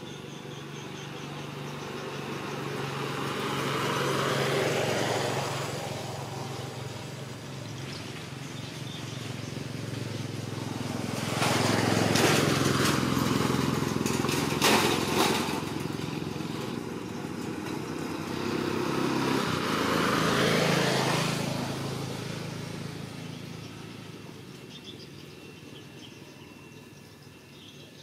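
Motor vehicles driving past on the road, one after another: three pass-bys, each swelling and fading away, the loudest about twelve seconds in.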